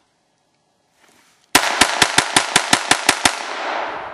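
Ruger 22/45 Mark III .22 LR semi-automatic pistol fired rapidly, about ten shots in under two seconds, starting a second and a half in. Each sharp crack is followed by an echo that dies away slowly after the last shot.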